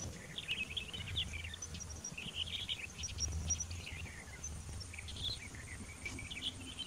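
Outdoor ambience: birds chirping in short, scattered calls over a low steady hum.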